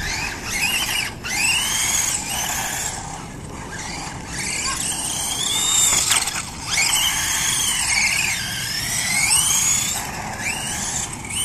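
Helion Animus 18TR 1/18-scale electric RC truck's motor and gears whining, the pitch climbing and falling again and again as it speeds up and slows down, with brief breaks when the throttle is let off.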